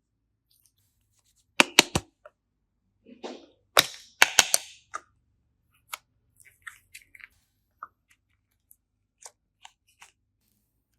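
Slime being pressed and handled, giving sharp air-bubble pops and clicks: three quick pops about a second and a half in, a louder cluster around four seconds, then scattered small clicks.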